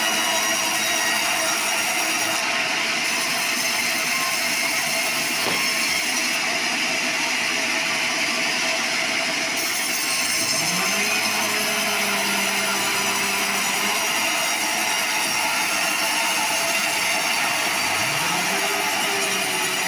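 Horizontal bandsaw mill blade cutting lengthwise through sonokeling (Indian rosewood) timber, a steady sawing noise. A lower machine hum rises in pitch about halfway through and again near the end.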